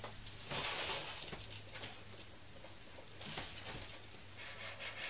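Snap-off utility knife blade cutting through stiff EPS foam with scratchy, rasping strokes. One stretch comes about half a second in and lasts about a second, and another comes around three seconds in.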